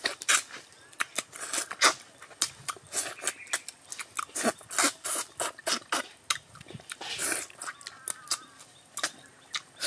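Close-up eating sounds: people chewing, sucking and smacking their lips on braised chicken heads, with many quick, irregular wet clicks and crunches.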